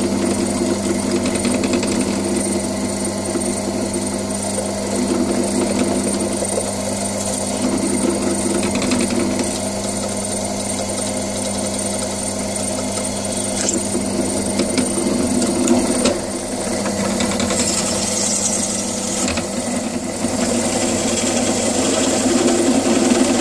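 Benchtop drill press motor running steadily with a constant hum while drilling a sheet-metal bracket, first with a small bit and near the end with a step drill bit opening out the wiring hole.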